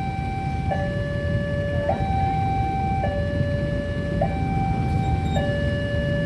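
Railway level-crossing warning siren sounding a hi-lo alarm, switching between a higher and a lower tone about every second, over a steady low rumble.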